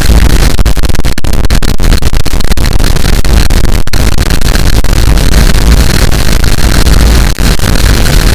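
Harsh noise: a continuous, very loud wall of distorted, clipped noise across the whole range from deep rumble to hiss, broken only by a few split-second dropouts.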